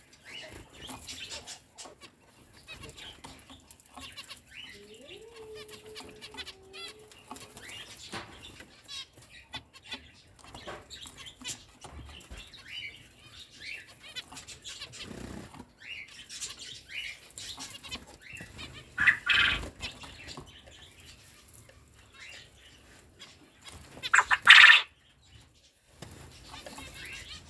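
Zebra finches chirping and calling again and again, with two much louder brief bursts from the birds, one about two-thirds of the way through and one near the end.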